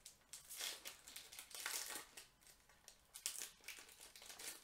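Foil wrapper of a Magic: The Gathering booster pack crinkling in several bursts as it is opened and handled.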